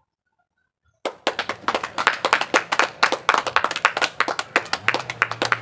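A small group of people clapping their hands fast and unevenly, starting suddenly about a second in after a moment of silence.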